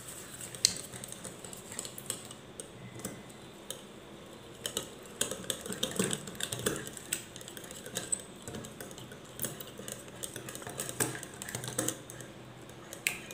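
Metal wire whisk beating eggs and sugar in a glass bowl: quick, irregular clicking and tapping of the wires against the glass.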